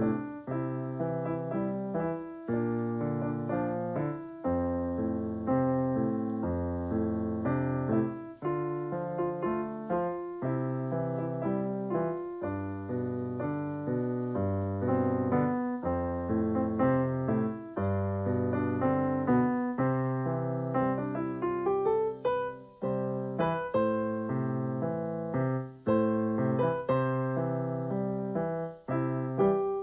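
Piano music: a piece of chords and melody notes played at a steady pace, with a quick rising run of notes about two-thirds of the way through.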